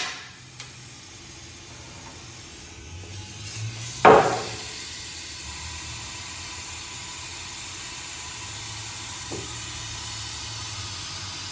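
One sharp metallic clank about four seconds in, from steel parts knocking during work on a pickup's front sway bar and its end links, over a steady hiss with a faint tick or two.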